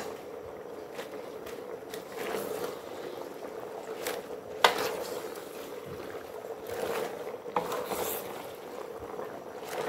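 Wooden spatula stirring and tossing raw bok choy leaves through a pork stir-fry in a stainless steel pot: scraping and leafy rustling, with a sharp knock against the pot about four and a half seconds in, over a steady low hum.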